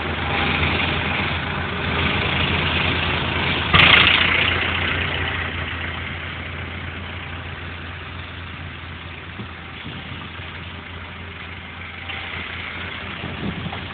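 Farm tractor diesel engines and a trailed forage harvester running steadily while chopping maize. A brief loud burst comes about four seconds in, and after it the machinery gradually grows quieter.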